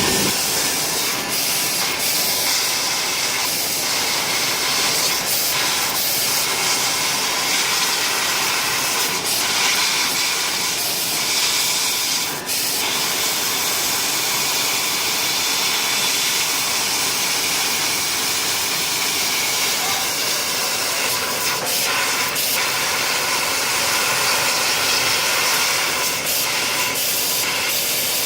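Fiber laser CNC cutter with a 500 W Raycus source hissing steadily as it cuts thin 0.6 mm sheet, the hiss of the assist-gas jet at the cutting head, with a brief dip about twelve seconds in.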